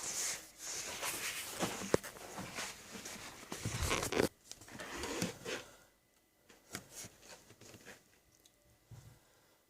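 Close rustling and crackling noises with sharp clicks for about six seconds, then mostly quiet with a few faint clicks.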